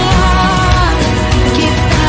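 Background music with a steady level and a melody line over sustained chords.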